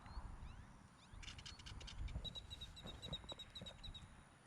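A small bird calling: a quick run of high notes, then a steady series of short high chips at one pitch, about five a second, over a low rumble.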